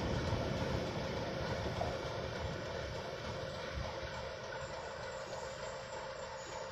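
Diesel locomotive engine running with a steady drone over a low rumble, slowly fading.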